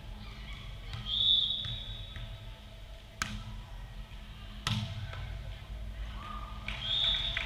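A referee's whistle blast about a second in, then two sharp smacks of a volleyball about a second and a half apart as the serve is played; another short whistle tone near the end.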